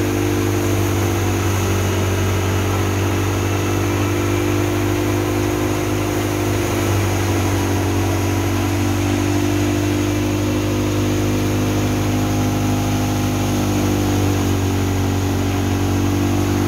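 Tractor engine and the wheat thresher it drives through a PTO shaft and V-belts, running at a steady speed. A loud, even drone with a strong low hum and several steady tones above it.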